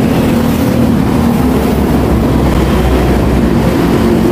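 Road traffic passing: a vehicle engine droning low and steady, with a deep rumble that swells through the middle and eases near the end.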